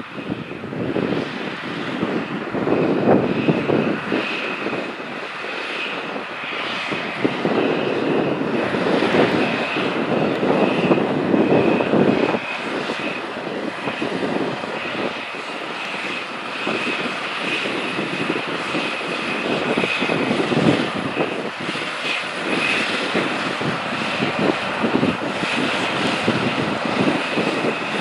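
John Deere 9R-series four-wheel-drive tractor's big diesel engine working under load as it pulls a chisel plow, with a steady high whine over the engine noise. The loudness swells and eases.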